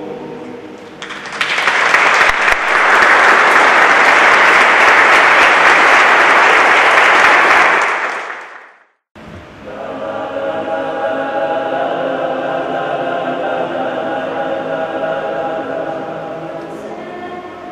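A men's choir's last chord fades, then an audience applauds loudly for about seven seconds, cut off abruptly. After a moment of silence the men's choir starts singing its next piece.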